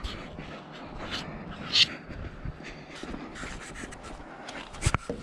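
Rustling and handling noise from someone moving about with a handheld camera, with scattered small knocks, a brief hiss about two seconds in, and a sharp click near the end.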